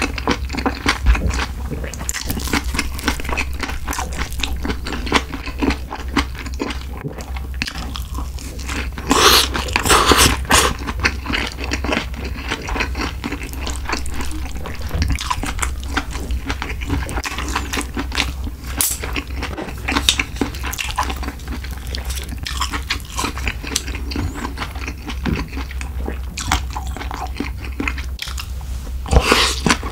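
Close-miked eating sounds of a person chewing and biting spicy stir-fried pork with rice: a dense run of small wet mouth clicks and smacks, with louder bites about nine to eleven seconds in and again near the end.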